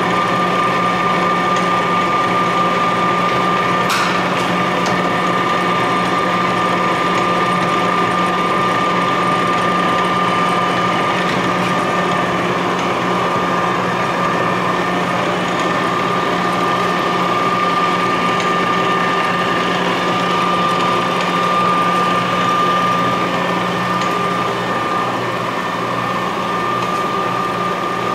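Clausing engine lathe running under power: a steady gear whine over a low hum from the headstock and drive train, with one short click about four seconds in.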